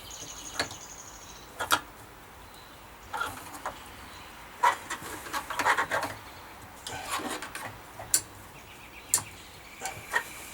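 Scattered clicks, knocks and scraping from hand work on a boat steering wheel stuck fast on its helm shaft, in irregular bursts.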